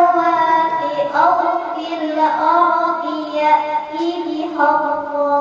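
A young student chanting Quran recitation (tilawah) into a microphone. The melodic line is made of long held notes that waver and slide, broken into phrases about every second or so.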